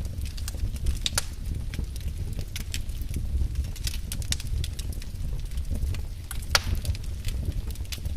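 Wood fire crackling, with irregular sharp pops and snaps over a low steady rumble; the loudest pop comes about six and a half seconds in.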